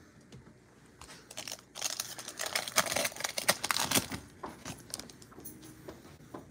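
Foil wrapper of a Mosaic football card pack being torn open and crinkled by hand. The crackling is loudest from a couple of seconds in until about four seconds in, then dies down to a few light crinkles.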